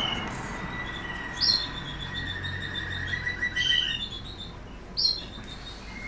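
Canaries chirping and singing: thin whistled notes and a short trill, with two sharp, loud chirps about one and a half seconds in and again near five seconds.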